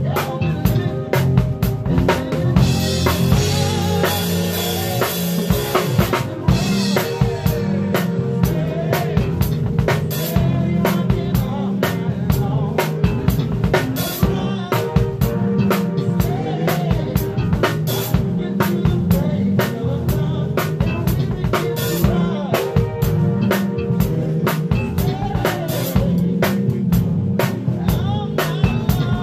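Live band playing an R&B/funk groove, heard from right beside the drum kit. Snare, bass drum and cymbal hits are loud and close over the rest of the band, with a long cymbal wash a few seconds in.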